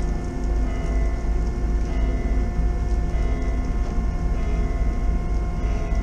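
Steady hum of the MS Chi-Cheemaun car ferry's engines and shipboard machinery while under way. Several steady tones sit over a low rumble, with wind buffeting the microphone.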